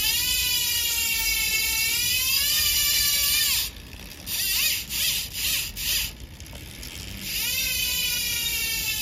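Industry Nine Hydra rear hub freewheeling as the rear wheel spins, a fine, smooth, high-pitched buzz from its near-instant engagement. The buzz holds steady for a few seconds, breaks into several short bursts in the middle, then runs steadily again from about seven seconds in.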